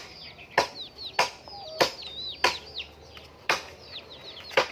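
A flock of chickens peeping, a stream of short high chirps that fall in pitch, with sharp knocks every half second to a second.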